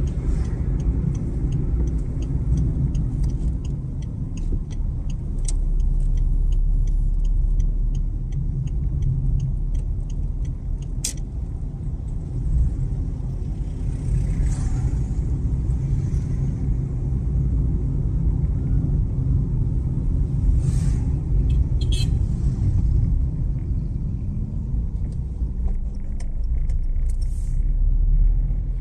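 Car driving at road speed: a steady low rumble of engine and tyre noise. Through the first ten seconds or so a light, regular ticking runs along with it, about three ticks a second.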